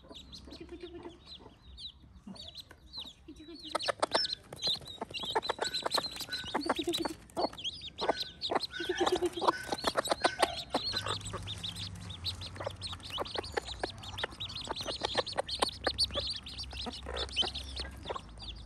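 Chickens clucking, with a dense, irregular run of sharp taps and knocks starting about four seconds in.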